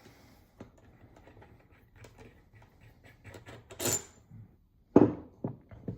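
Steel connecting-rod bolts and a connecting rod handled on a bench: light ticks and scrapes, a bright metallic clink about four seconds in, then a heavier knock about five seconds in and a smaller one just after.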